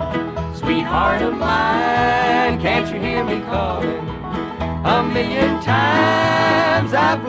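Bluegrass band playing an instrumental break: a lead instrument holds long notes that slide in pitch, over guitar, banjo and bass.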